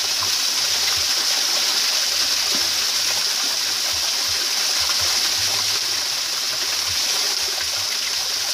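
Steady rush of flowing river water, with a few faint low knocks.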